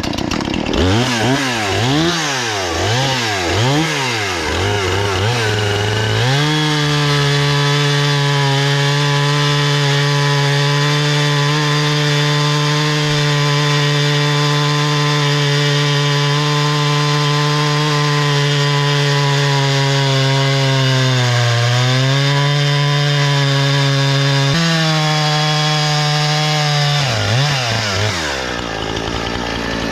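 Husqvarna 460 Rancher's 60cc two-stroke chainsaw engine blipped up and down several times, then held at full throttle as it cuts through a poplar log. The revs sag briefly under load partway through, pick up again, and fall back to idle near the end.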